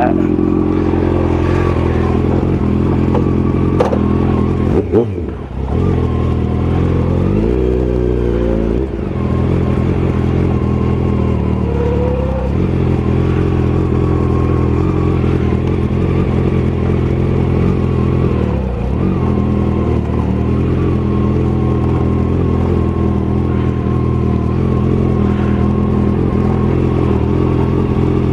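Kawasaki sport bike engine running at low speed, mostly a steady idle-like note with a few brief throttle changes, one rising in pitch about eight seconds in. Heard through the rider's helmet-mounted mic.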